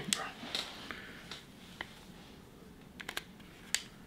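Scattered small clicks and taps from a smartphone and its plastic clip mount being handled, with a quick run of clicks about three seconds in.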